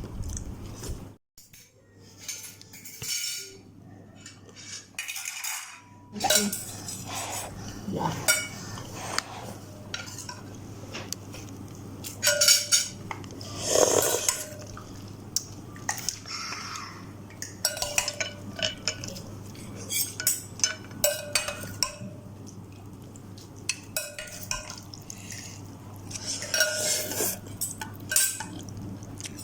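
Spoon and fork clinking and scraping against a bowl of instant noodles while eating, in irregular sharp clinks, some with a short ring.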